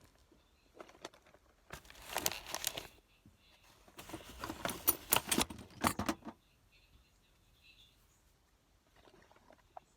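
Rummaging through small tools and parts: clattering and crinkling in two bouts, one about two seconds in and a longer one from about four to six seconds.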